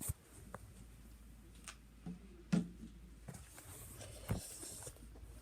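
Half a dozen light knocks and clicks at irregular intervals over a faint room hum, the loudest about two and a half seconds in.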